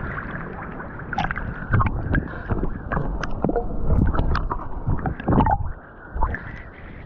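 Water splashing and sloshing close by as swimmers move at the surface, in irregular bursts over a steady wash of water noise.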